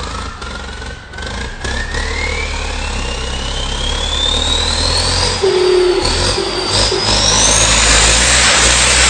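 Tata Indigo's turbocharger whistling as the engine is revved. A high whistle climbs steadily in pitch, dips briefly a little past halfway, then climbs higher still, over the engine's low running.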